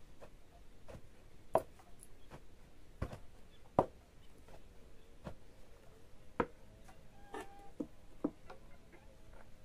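Long wooden pestle pounding boiled soybeans in a tall wooden mortar, crushing them for kinema: dull thuds at uneven intervals, a few loud strokes among softer ones.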